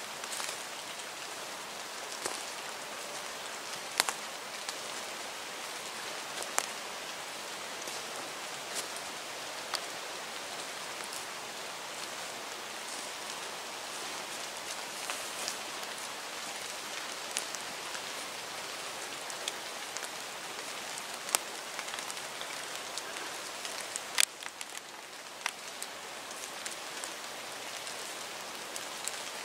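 Steady rain falling on forest foliage, an even hiss with scattered sharp ticks, the loudest about 24 seconds in.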